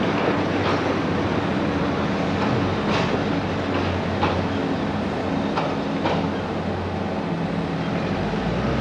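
Manx Electric Railway electric tram running on its rails: a steady motor hum and running noise, with a handful of sharp clicks from the wheels over rail joints.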